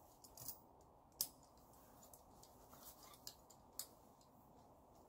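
Near silence, broken by four short, sharp clicks, the loudest about a second in and two more a little past three seconds.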